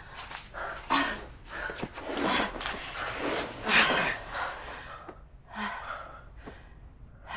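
A person gasping and breathing hard: a series of ragged, noisy breaths, the loudest about four seconds in, then easing off.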